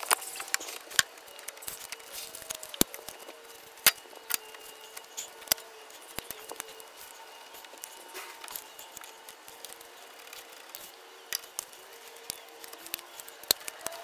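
Hand-tool work on the lower end of a radiator: irregular small metallic clicks and knocks as a pair of pliers handles the hose fittings, over a faint steady hum.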